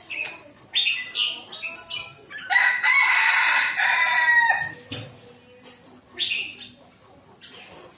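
Red-whiskered bulbuls give short bright chirping notes. In the middle, a rooster crows once, a drawn-out call of about two seconds that is the loudest sound.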